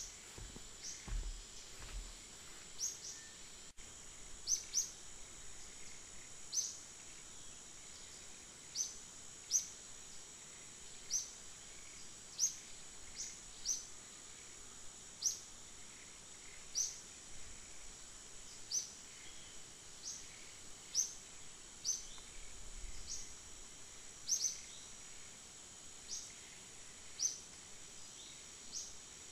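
Forest ambience: a steady high insect drone, with a bird's short, sharp high chirps repeated about once a second, sometimes in quick pairs.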